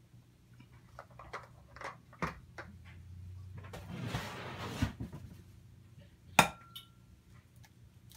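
Light clicks and knocks of dishes and utensils on a kitchen table, and a rustle. About six seconds in comes one sharp clink of glass, which rings briefly with a single tone.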